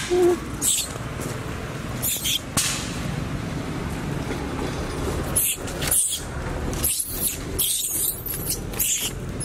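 Baby long-tailed macaque giving short, high-pitched squealing cries, repeated several times while an adult pulls it by the tail, over a steady low rumble.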